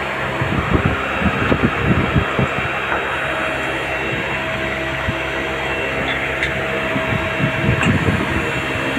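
Steady whir of a CNC lathe running, its pumps and motors going, with a few low bumps as a steel workpiece is handled and set into the chuck, mostly in the first couple of seconds and again near the end.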